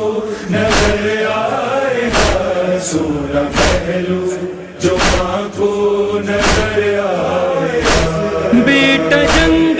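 Noha lament: a chorus of voices chanting long, drawn-out wordless lines over a heavy thud about every one and a half seconds, the beat of matam chest-beating. A stronger, higher voice line comes in near the end.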